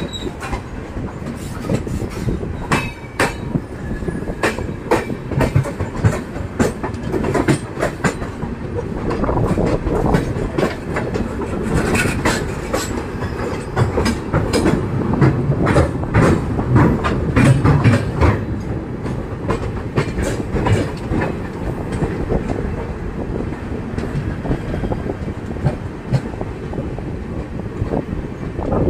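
Rumble and rapid clickety-clack of passenger coach wheels running at speed over rail joints and points, alongside another train on the next track, with sharp metallic clanks scattered throughout. The rumble is heaviest in the middle stretch.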